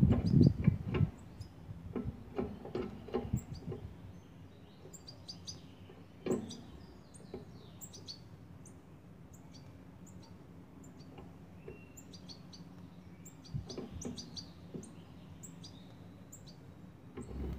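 Balkan goldfinches giving short, high chirps, scattered through the whole stretch. Knocks and rattling are loudest in the first second or so, with a few single knocks later.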